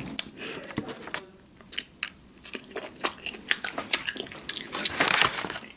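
Close-miked mouth eating sounds: chewing with wet clicks and snaps of fast food, and a brief breathy noise about five seconds in.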